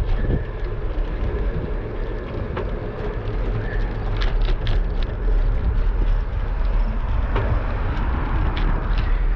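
Wind buffeting an action camera's microphone on a moving bicycle, a steady low rumble mixed with tyre noise on pavement. A few light clicks sound around the middle and again near the end.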